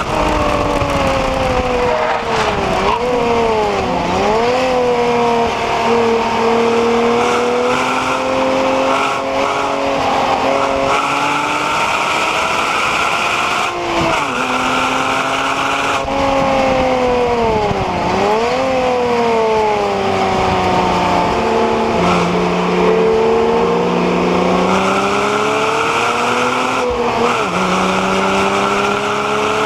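Porsche Cayman 987's 2.9-litre flat-six under hard driving on track. Its pitch climbs through the gears, falling back a step at each upshift. Twice the revs drop sharply and climb straight back.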